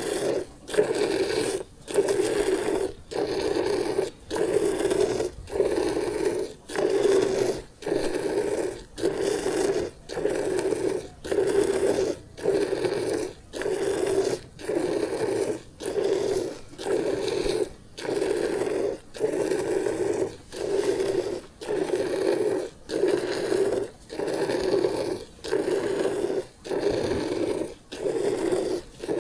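Buffalo being hand-milked: jets of milk squirting into a pail in steady strokes about once a second.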